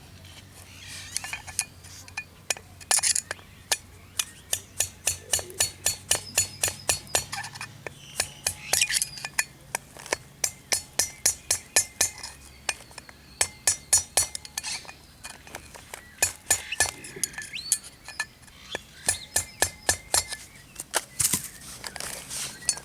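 Hammer blows on a steel socket used as a drift, driving a wheel bearing into a VW Pointer's rear hub: a long run of sharp metallic clinks, about two a second, each with a short ring.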